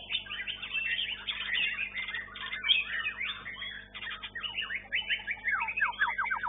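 White-rumped shama (murai batu) singing a fast, varied song of chirps and slurred whistles, with a quick run of falling notes near the end.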